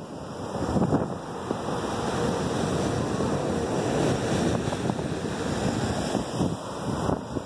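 Ocean surf washing and breaking on the beach, a steady rushing noise, with wind buffeting the microphone.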